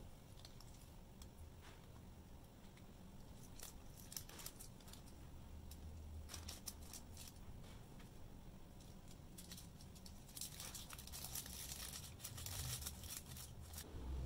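Thin plastic sauce bag crinkling as chili sauce is squeezed out of it, in scattered crackles, then a denser stretch of crinkling and rustling of the plastic and paper food wrapping from about ten seconds in.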